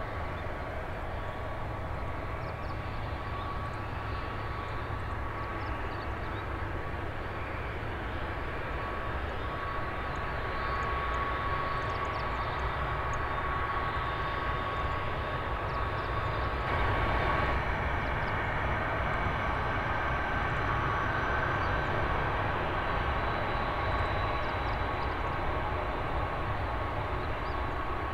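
Airbus A330 airliner's jet engines running at low power as it rolls out after landing and taxis off the runway: a steady jet whine with one high tone held throughout, growing louder about ten seconds in and again past halfway as the plane nears.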